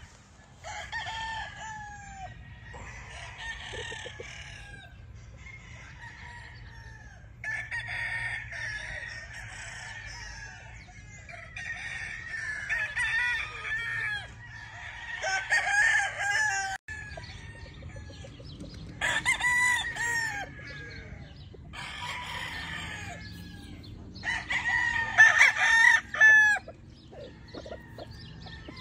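Several gamefowl roosters crowing one after another and overlapping, with clucking in between; the loudest crows come about two-thirds of the way in and near the end.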